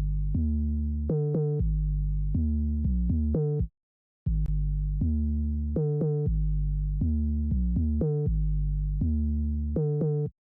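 Dembow synth bass loop: a synthesized bass playing a repeating pattern of low, sustained notes on its own, with a short break about four seconds in before the pattern starts again.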